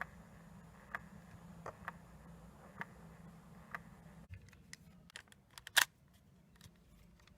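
Sony WM-D3 cassette mechanism: a faint low motor hum with a sharp click about once a second. About four seconds in the hum stops and a quick run of mechanical clicks follows, the loudest near the end.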